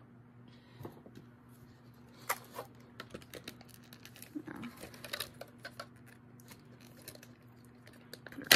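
Small clicks and taps of a plastic doll and its accessories being handled, with a louder clatter about eight and a half seconds in, over a faint steady low hum.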